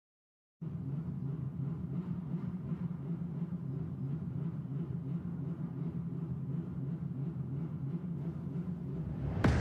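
A steady low rumble that starts just after half a second in, cut by a sudden sharp hit near the end as music begins.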